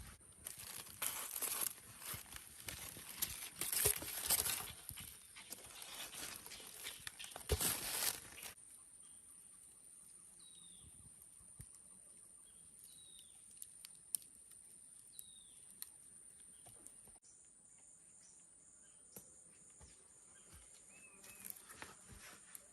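Rustling and crackling, as of leaves or plant material being handled, for the first eight seconds or so. Then forest ambience: a steady high insect drone and a bird's short falling call repeated about every two seconds.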